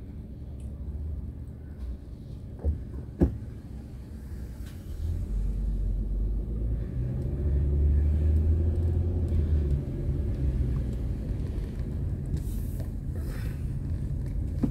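Car's low engine and road rumble heard from inside the vehicle, with two short knocks about three seconds in; the rumble grows louder about five seconds in.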